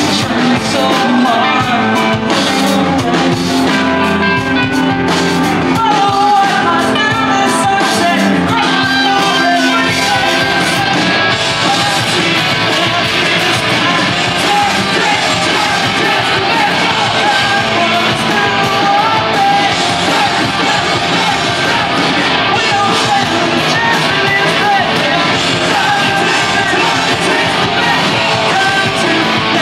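Live emo rock band playing loud: sung and shouted vocals over distorted electric guitars, bass and drums. About ten seconds in the mix turns denser and brighter.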